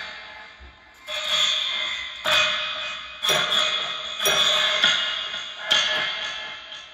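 Homemade piezoelectric noisemaker, its springs and metal parts set going by hand and amplified through piezo pickups. Five sudden twangs, about a second apart, each ringing and dying away.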